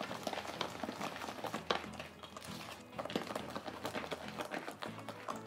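Wire hand whisk beating cake batter in a stainless steel bowl: rapid, irregular clicks and scrapes of the wires against the metal. Background music plays underneath.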